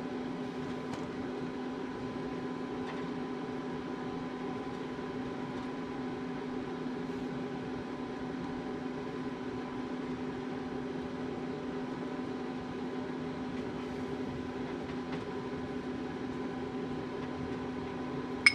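Steady machine hum, even and unchanging, with a few faint light ticks.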